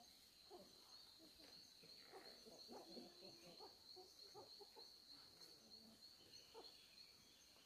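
Faint outdoor ambience: a steady, evenly pulsing high-pitched insect trill, with scattered faint short calls beneath it.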